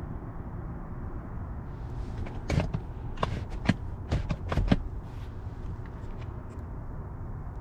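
Hand pressing and prodding a Merino leather car-seat bolster: a quick run of sharp creaks and taps about two to five seconds in, over a steady low rumble.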